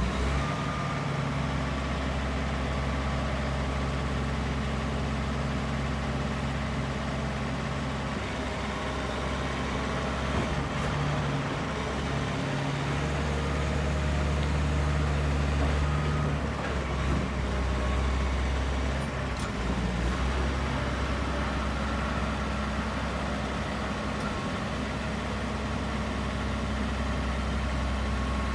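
Caterpillar 730 articulated dump truck's diesel engine running steadily while the hydraulic rams tip the dump body up and lower it again; the engine note shifts in the middle, while the body is raised.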